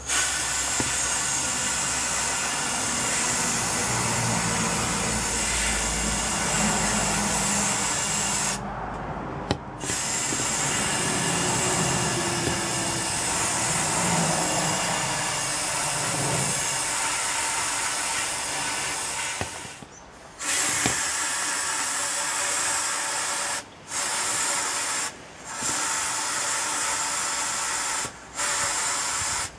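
Blast cabinet gun shot blasting a metal part: a loud, steady hiss of compressed air and abrasive. It stops for about a second when the trigger is let go a third of the way in and again about two-thirds in, then drops out in several short gaps near the end. A low hum runs under it through the first half.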